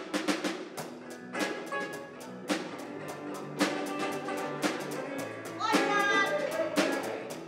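Rock band music with a bass line and loud drum hits at uneven spacing. About six seconds in, a sliding lead voice comes in over it.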